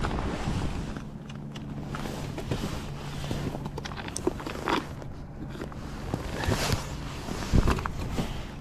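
Wind on the microphone on open ice, with scattered clicks and knocks of fishing gear being handled, the loudest a knock near the end. A faint steady low hum runs under the first half.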